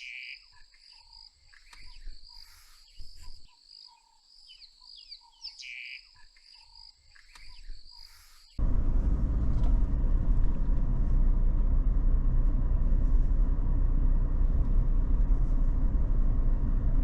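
Bush ambience: a steady high insect trill with scattered bird chirps and calls. About halfway through it cuts abruptly to a loud, steady low rumble that lasts to the end.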